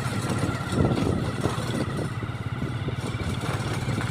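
Motorcycle engine running steadily while the bike is ridden along a road, with a constant low hum and road noise.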